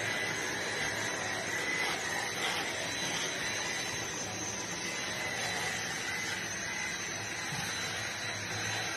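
Cordless stick vacuum cleaner running steadily with its nozzle on a pug's fur: an even hiss with a high, steady whine.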